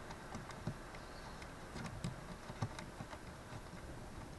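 Faint, irregular small clicks and taps of plastic screw cover caps being pushed and twisted onto screws by hand.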